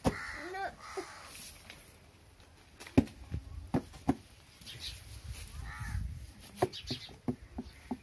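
Cardboard parcel boxes being handled: several sharp knocks and taps as the boxes are moved and pressed, with a cluster of quicker clicks near the end. A few short high-pitched calls sound faintly in the background.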